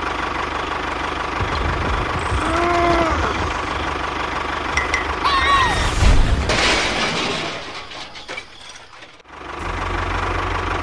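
Steady low engine running for a mini toy tractor, with a few brief gliding whistle-like tones about two to three and five to six seconds in. The engine sound drops away around eight seconds and picks up again near the end.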